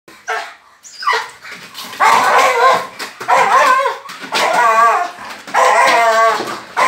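Muzzled dog barking and whining in a run of long, wavering cries, about one a second, after a short falling yelp about a second in. This is an aggressive, highly stressed dog straining against being held.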